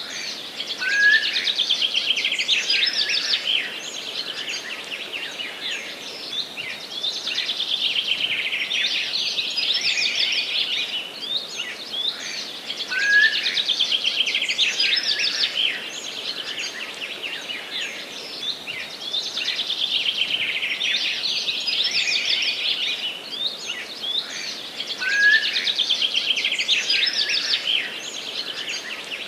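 Several songbirds singing at once in a dense chorus of overlapping warbles and rapid trills, with no pauses. A short upslurred note starts the same loud passage about every twelve seconds.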